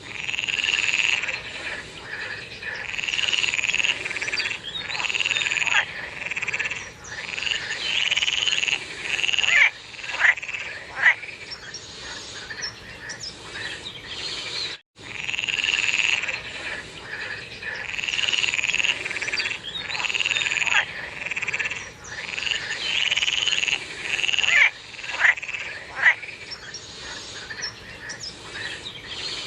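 A chorus of frogs calling, each call about a second long, repeating every second or two and overlapping, with a few short sharp calls mixed in. The sound cuts out for an instant about halfway through.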